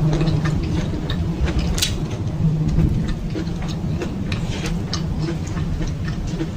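Close-miked chewing: many small, wet mouth clicks over a steady low hum.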